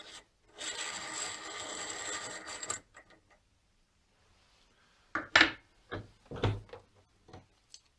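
A cog of a Maillard freewheel being unscrewed by hand, its threads scraping steadily for about two seconds. Later come a few short metallic clinks as the loose cog is handled, the loudest about five seconds in.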